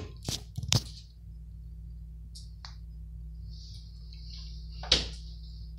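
A couple of sharp clicks and knocks from handling, then a soft "shh" hiss and a single sharp knock near the end, over a steady low hum.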